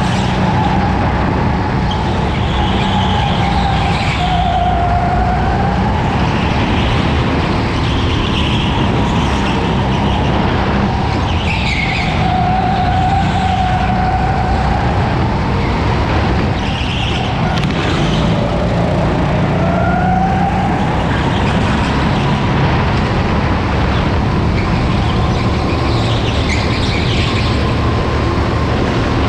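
Racing go-kart heard from the driver's seat at speed, its motor whine gliding lower and higher again as the kart slows into corners and accelerates out, over a steady rumble of tyres and chassis on the track.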